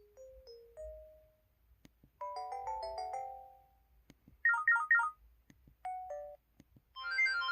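A run of short electronic alert melodies from an MS500 mobile phone, one after another with pauses between: a few rising notes, a chiming jingle, a burst of quick falling chirps, a two-note blip, then a longer, louder tune starting near the end.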